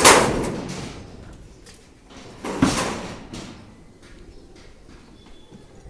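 Two loud metal clangs about two and a half seconds apart, each ringing and dying away over about a second, with a few faint knocks afterwards.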